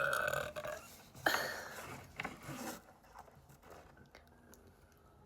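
The end of a burp trails off at the start. About a second in comes a sudden airy, breathy rush of air that fades out over a second and a half.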